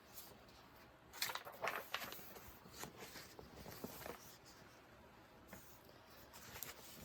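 Faint paper rustling and soft taps of a picture book's pages being handled and turned, mostly from about one to four seconds in.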